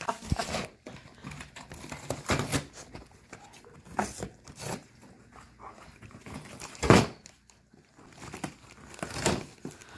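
A dog tearing and chewing cardboard, with irregular crackling rips and crunches; the loudest rip comes about seven seconds in.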